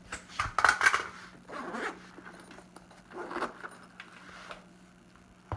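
Nylon ammo transport bag being handled: several short rasping strokes, the loudest about half a second to a second in, with fainter ones near two seconds, three and a half and four and a half seconds.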